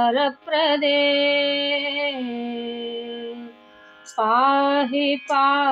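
A woman singing a Sanskrit devotional stotra to the goddess Lakshmi, holding long notes with gentle ornaments. She breaks briefly past the middle, then starts the next phrase.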